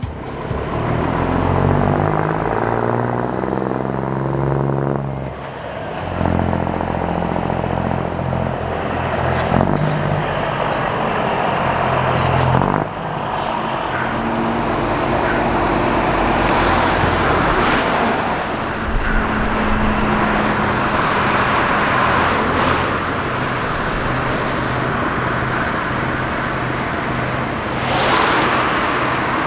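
Scania NextGen S500's straight-six diesel running through an open exhaust as the truck pulls away and accelerates. The revs climb and drop back at two gear changes, about five and thirteen seconds in.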